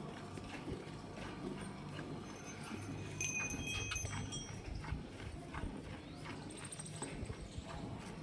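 Cattle hooves knocking on a hard floor in irregular clip-clops, as Gir cows shift and step about.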